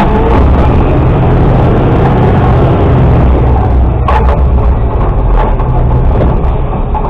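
Mack LR600 garbage truck's diesel engine running as the truck drives, with a sharp clank about four seconds in.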